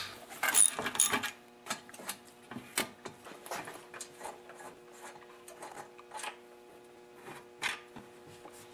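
Hand ratchet and socket clicking in short runs as the fuel-tank bolts are backed out, with scattered clicks and light knocks from handling the bolts and the tank.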